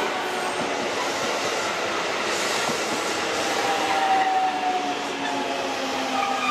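Electric multiple-unit train running slowly past: a steady rumble of wheels on track with a motor whine that falls gradually in pitch as the train slows.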